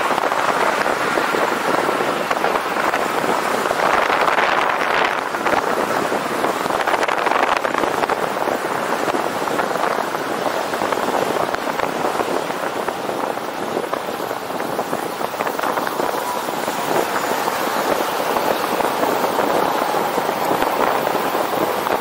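Steady wind rush over the microphone of a camera riding along on a road bicycle at speed.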